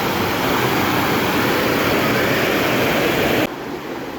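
Waterfall rushing: a loud, steady roar of falling water. About three and a half seconds in it drops abruptly to a softer rush.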